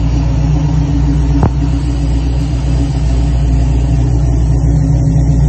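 Ford Performance Boss 347 crate V8 running steadily, with the internal knock the owner hears on this new, barely run engine and cannot trace. A single sharp tick sounds about a second and a half in.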